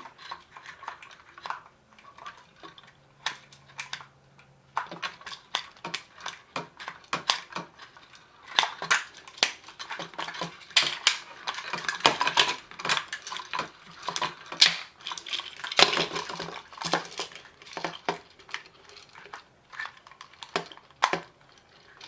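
Toy plastic handcuffs and their chains being fiddled with as the locks are picked: many quick, irregular clicks, knocks and rattles, busiest in the middle, with small parts clattering on the table.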